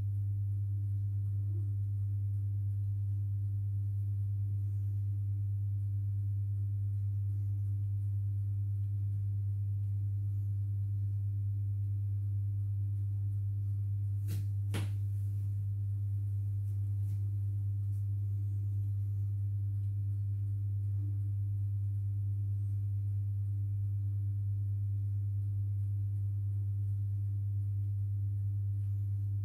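Steady low electrical hum from the running induction-heater rig driving the coil around the steel pipe. Two sharp clicks about half a second apart come about halfway through.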